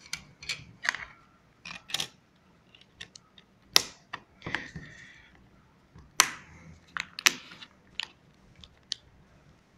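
Irregular clicks and taps from handling a Lenovo A588T flip smartphone while it is being switched on, with a few short rustles of hands on the handset.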